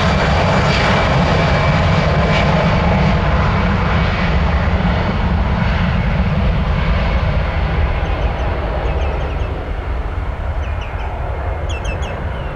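Airbus A319 airliner's jet engines at high power, a loud steady rumble whose higher part dies away and whose level slowly falls as the plane moves off. Short high chirps come in over it near the end.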